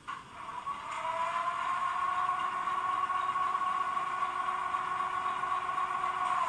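Onboard sound decoder of a Brawa H0 model of the E42 electric locomotive playing a steady electric-locomotive hum through the model's small speaker while it stands still. The hum switches on suddenly, rises slightly in pitch over the first second, holds steady, then begins to slide down and fade at the very end.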